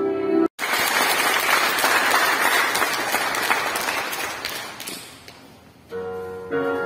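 Music cuts off suddenly about half a second in. A crowd applauds, and the clapping fades away over the next few seconds. Soft music comes back in near the end.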